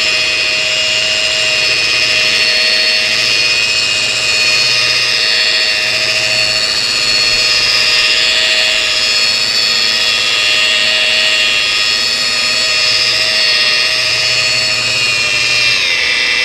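DeWalt rotary polisher running at low speed with a wool pad on car paint, a steady high motor whine over a low hum that swells and fades every few seconds as the pad is worked across the panel. The pitch dips slightly near the end. It is cutting out 2000- and 3000-grit wet-sanding marks.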